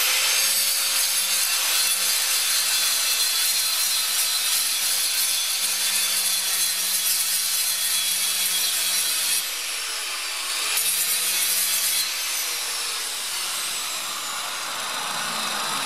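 Electric angle grinder with an abrasive disc sanding a fiberglass surface to roughen it so resin and fiberglass will bond. Steady motor hum under a harsh grinding noise, which dips briefly near ten seconds. About twelve seconds in the motor stops and winds down with a falling whine.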